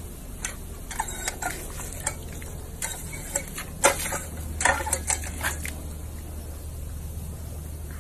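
A dog laps and snaps at the water jet of a paw-pedal dog water fountain: wet clicks, slurps and splashes in an irregular run, the loudest around the middle. They stop about six seconds in.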